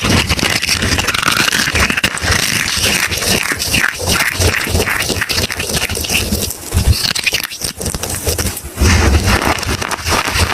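Soap being crushed and broken apart: a dense, continuous run of crunching and crackling.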